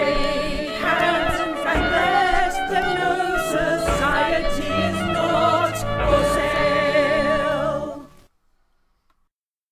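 A political protest song with sung vocals, ending about eight seconds in with an abrupt drop to silence.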